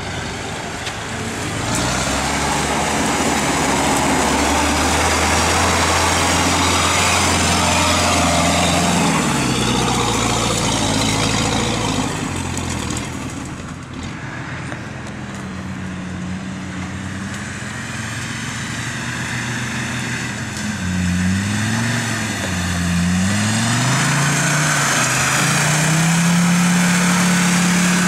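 Off-road 4x4 engines labouring under load through deep mud. The revs rise and fall several times in quick succession in the second half, then hold high and steady near the end as a vehicle comes close.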